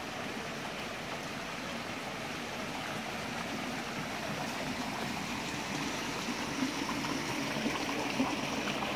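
Water running steadily in a stream or channel, a continuous rushing flow that grows slightly louder towards the end.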